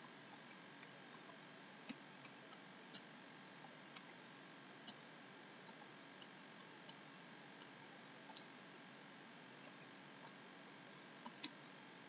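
Faint, irregular clicks and taps from a stylus on a writing tablet while words are handwritten, over a low steady hiss. The loudest tap comes near the end.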